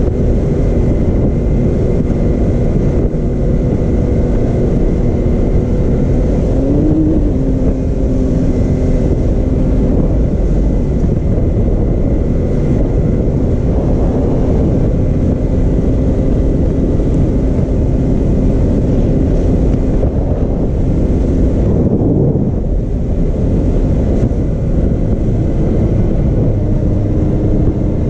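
Can-Am Maverick X3 Turbo RR's turbocharged three-cylinder engine running steadily while the side-by-side drives a gravel road, heard from the cockpit under heavy wind and road rumble. The engine note rises briefly about seven seconds in and eases off again.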